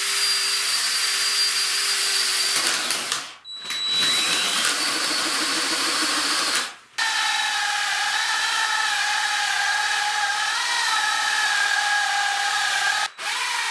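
Cordless drill with a wide bit boring a large hole through a wooden board, running steadily. It stops briefly about three seconds in, again about seven seconds in, and once more near the end; after the second stop its tone changes.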